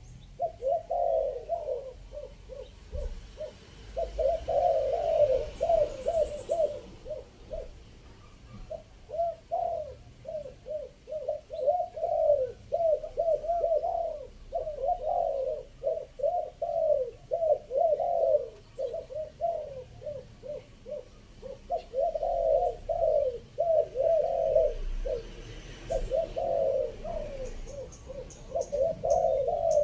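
Spotted doves cooing: rapid runs of short, repeated coos, with brief pauses between bouts. The calling is a lure call of the 'three-kook' type, used to draw in wild spotted doves.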